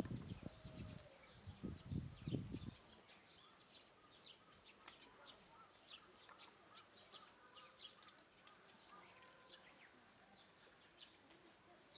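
Faint chirping of small birds in the background, many short high calls scattered throughout. A few low, muffled thumps in the first three seconds.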